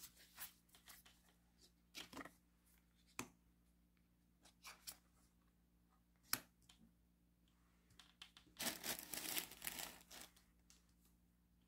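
Faint handling of oracle cards on a wooden table: scattered light taps and slides as cards are laid down, one sharper tap about six seconds in, and a longer stretch of cards sliding and rubbing against each other about nine seconds in.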